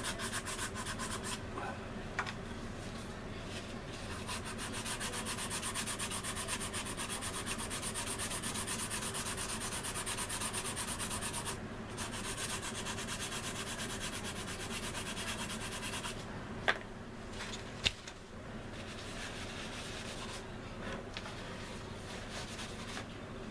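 Hand-sanding a resin model aircraft fuselage with a sanding stick: quick, even back-and-forth strokes that ease off later on, with two sharp clicks about a second apart partway through.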